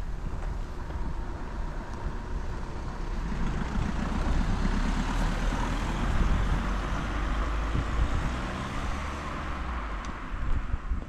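A road vehicle driving past: its engine and tyre noise swells over a few seconds and then fades away, over a steady low rumble.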